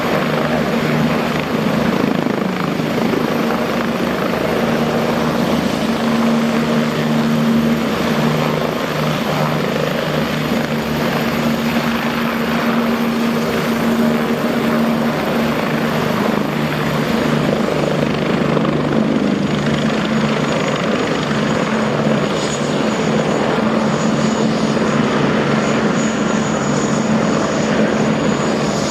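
Bell 429 GlobalRanger helicopter running steadily: main-rotor thrum over the whine of its twin turboshaft engines, a thin high whine fading out about halfway and another coming in near the end.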